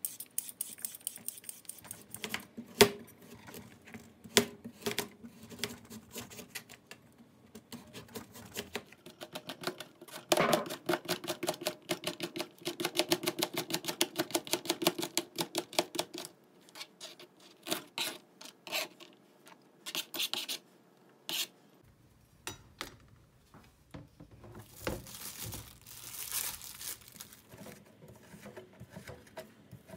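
A vegetable peeler scraping the skin off a carrot in short strokes, then a kitchen knife cutting the carrot into thin julienne strips on a plastic cutting board, with a fast, even run of chopping taps in the middle. Scattered knocks and scrapes follow as the cut strips are handled.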